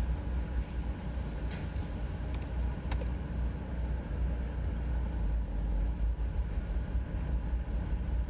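2002 Chevrolet TrailBlazer's 4.2-litre inline-six engine running steadily, a low rumble with a few faint clicks in the first few seconds.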